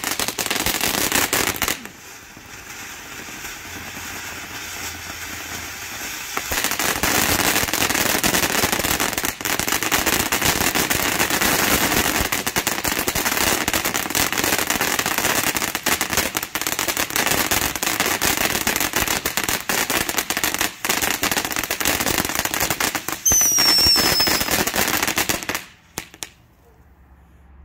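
TNT Fireworks Iron Horse fountain burning, giving dense crackling over a spraying hiss. About two seconds in it drops to a softer hiss, then crackles loudly again from about six seconds in. A short, slightly falling whistle sounds near the end, just before the fountain cuts off suddenly as it burns out.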